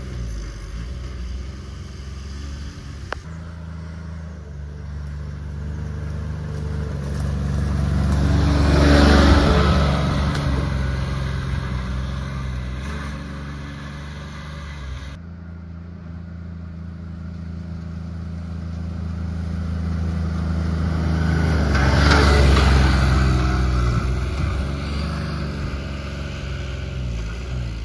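Corvus DX4 Pro EPS UTV's engine running as the buggy drives by on a dirt track, twice growing louder to a peak and then fading away.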